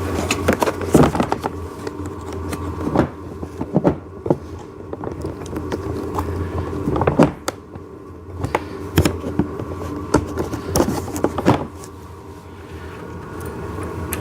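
Parts of a ride-on toy excavator knocking and scraping as a small axle pin is worked through the bucket's pivot holes: irregular knocks and clicks over a steady low hum.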